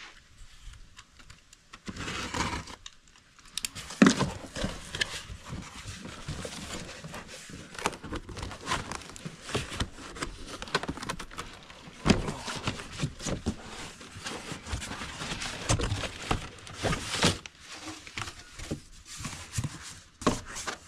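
Cardboard shipping box being cut and opened by hand: irregular scraping, rustling and crinkling of cardboard and flaps, with a few sharp knocks, the loudest about 4 seconds in and another about 12 seconds in.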